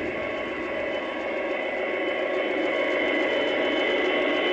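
Simulated diesel engine sound from the QSI sound decoder in an Aristocraft GP40 model locomotive, played through its onboard speaker. It runs steadily and grows louder as the locomotive comes closer.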